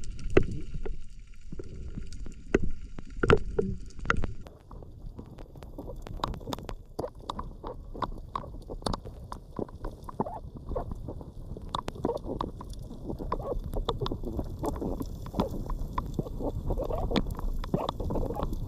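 Water sloshing and gurgling around a diver's camera during a spearfishing dive, a low churning rumble with many scattered short clicks and knocks.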